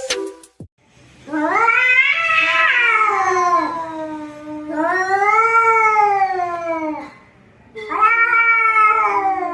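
Male cats caterwauling in a standoff: three long, drawn-out yowls that rise and fall in pitch, each lasting two to three seconds. A brief sharp click comes right at the start.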